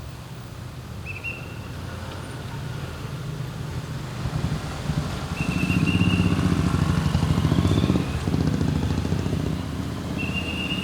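Street traffic: vehicle engines passing, one growing louder and going by close between about six and eight seconds. A traffic policeman's whistle gives short steady blasts, three times: near the start, in the middle and near the end.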